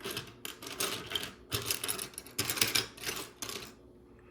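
Loose plastic Lego Technic pieces clattering as a hand rummages through them, in a run of short, irregular rattles that stop shortly before the end.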